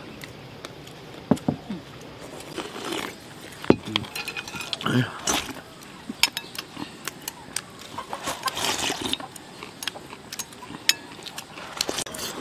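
Eating at a table: chopsticks tapping and clinking on porcelain bowls again and again, with several longer slurps of red bean porridge sipped from a bowl.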